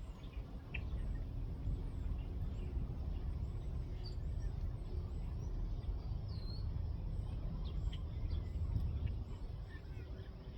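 Outdoor ambience: a steady, uneven low rumble with small birds chirping faintly now and then.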